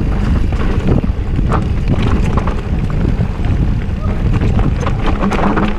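Wind buffeting the microphone and tyres rumbling over a dirt trail as a mountain bike descends at speed, with scattered clicks and knocks from the bike over the rough ground.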